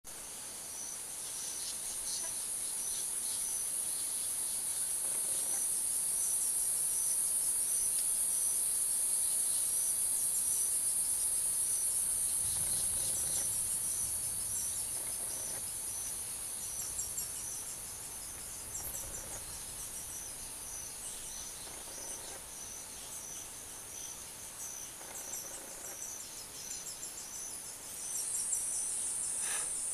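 A steady, very high-pitched insect drone fades away after about 17 seconds and comes back near the end. Under it a regular chirp repeats, with faint high peeping that fits woodpecker nestlings begging for food in the nest hole.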